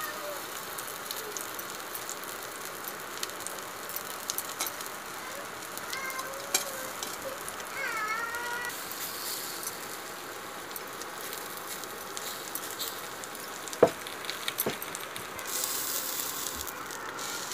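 Gram-flour-battered pumpkin-flower fritters sizzling and crackling in oil on a flat tawa. A sharp knock about three-quarters of the way through is a metal spatula striking the pan. A cat meows briefly around the middle.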